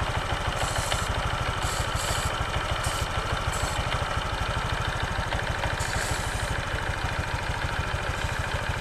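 A scooter engine idling steadily with its CVT belt and pulleys exposed, while an aerosol can of belt dressing hisses in about six short spray bursts onto the drive belt. The belt is being treated to stop its squeal.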